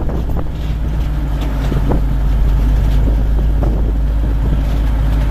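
Safari truck driving along, its engine running steadily, with a few short knocks.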